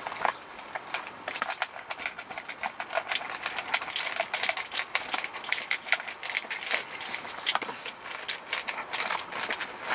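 A borzoi and a rough collie eating dry food from plastic bowls: a busy, irregular run of crunches and clicks of kibble against the bowls.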